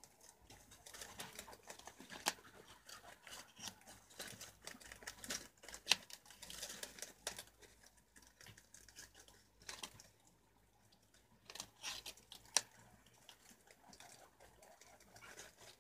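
Preás (wild cavies) nibbling and gnawing at vegetable scraps and rustling the leaves: a faint, irregular patter of small clicks and crunches, with a few sharper snaps.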